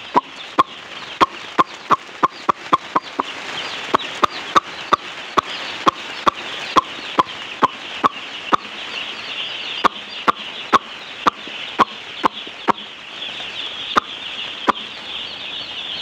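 A shed full of broiler chicks peeping all at once, the chatter swelling in the second half. Over it come sharp clicks about twice a second, made to call the chicks; they stop near the end.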